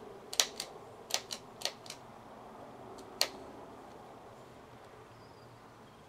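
Sharp clicks and taps from handling inside an open desktop computer case, near its metal drive cage, where a screwdriver is being worked. There are about seven, spread unevenly over the first three and a half seconds.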